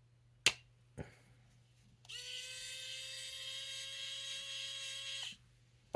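Two light clicks, then a small electric driver's motor whining at a steady pitch for about three seconds while the pump-side cover is taken off a chainsaw carburetor.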